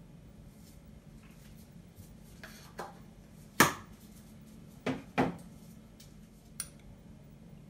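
A spoon tapping against a small bowl as a spoonful of cornflour is knocked into the sauce: about five sharp taps, the loudest about three and a half seconds in, then two close together about a second later.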